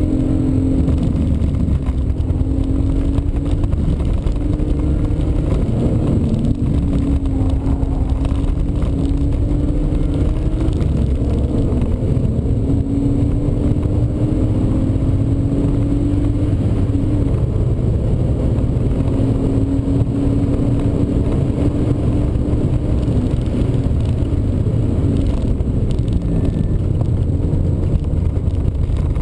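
BMW E36 320i's 2.0-litre straight-six heard from inside the cabin while driven hard. The engine note climbs slowly and drops back about four times as the car accelerates and then shifts or lifts, over constant road and wind noise.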